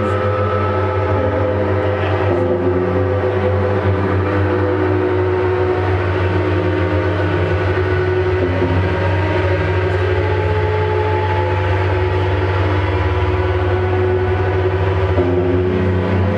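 Loud live drone-noise music: a heavy low hum under several layered held tones that shift slowly, with no beat.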